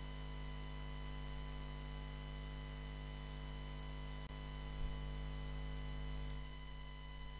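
Steady electrical hum and buzz with a faint hiss underneath, broken by a split-second dropout and a small click about four to five seconds in.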